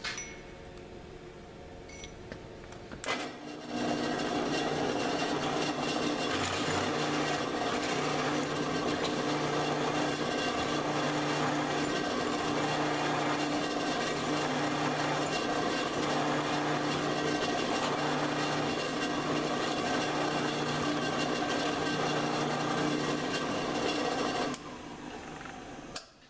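Drill press boring into a metal clamp body: from about three seconds in, a loud, steady cutting hiss over the machine's hum, with a lower tone pulsing about once a second. Near the end it falls back to a quieter hum, then cuts off.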